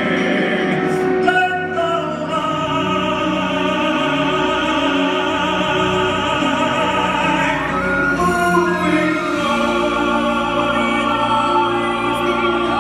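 A man and a woman singing a duet in a full, operatic style with long held notes, backed by a live orchestra with strings.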